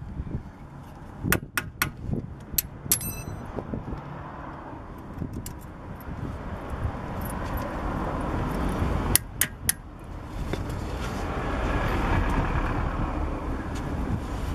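Sharp metallic taps and clinks at the hex key seated in a BMW E46's rear brake-disc retaining screw, as it is worked loose: a few near the start, one ringing briefly, and three in quick succession about two-thirds of the way in. Under them runs the rumble of a passing vehicle, swelling through the second half.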